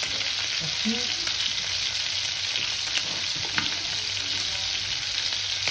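Skinless chicken pieces sizzling steadily in hot oil and butter in a frying pan, with a few small pops.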